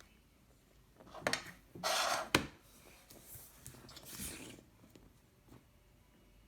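Short bursts of rubbing and rustling handling noise, with a sharp click about two and a half seconds in and a softer rub a couple of seconds later.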